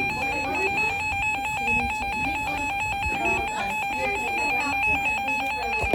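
Emergency Alert System header data tones: a loud, rapid electronic warble that flips quickly between a low and a high pitch and stops just before the end.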